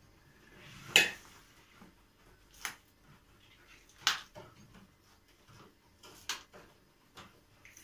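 Cucumbers being handled while a glass pickling jar is packed: about five short, sharp knocks and clicks of the cucumbers against the glass and the plastic bowl, the loudest about a second in.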